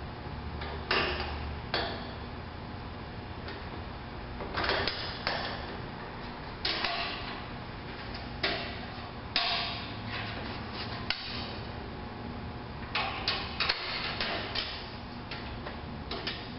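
Irregular metal clanks, knocks and rattles from a hand-worked mechanical tailgate lift as its aluminium diamond-plate platform is unfolded and set down, some hits ringing briefly.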